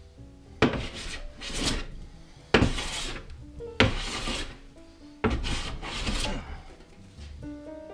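Metal hand bench plane taking repeated strokes along a hardwood board, the blade shaving wood in long rasping passes about a second or so apart, several starting with a sharp bite, as the board is flattened by hand.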